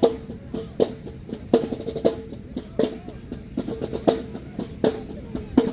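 Marching band drumline playing a cadence: strong drum hits about every three-quarters of a second, with lighter snare strokes between them.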